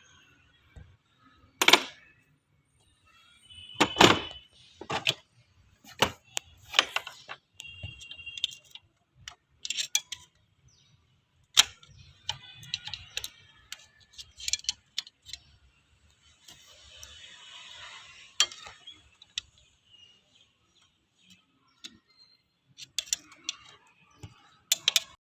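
Irregular metallic clinks and knocks of hand tools and metal parts being handled, a few of them ringing briefly.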